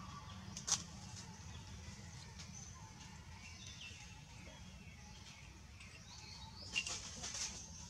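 Outdoor ambience: a steady low hum under faint, high chirping calls, with a few sharp clicks, the loudest about a second in and near the end.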